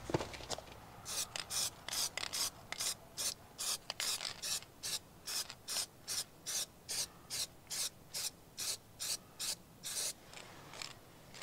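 Aerosol spray can spraying in short, quick puffs, about three a second, onto a ground-down weld repair on a steel door sill. The puffs start about a second in and stop near the end.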